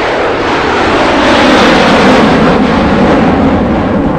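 Airliner passing low overhead on its landing approach: a loud rushing engine noise that builds to a peak about two seconds in, then eases slightly.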